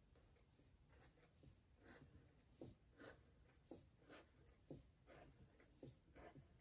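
Faint strokes of a Sharpie permanent marker on paper, drawing small polka dots one after another, about two short strokes a second.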